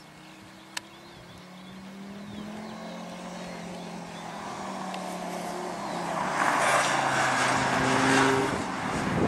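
Rally car engine running under power as the car approaches, growing steadily louder. In the second half a loud hiss of tyre noise joins it.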